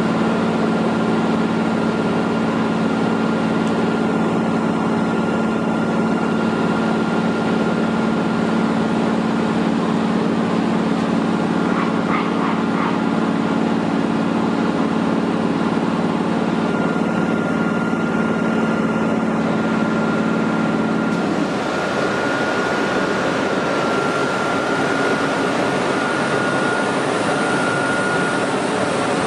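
Steady whirr of an FS E.656 electric locomotive's cooling blowers running while it stands at the platform, with a higher steady whine on top. A low hum in the sound drops out about two-thirds of the way through, leaving the whine and the rushing air.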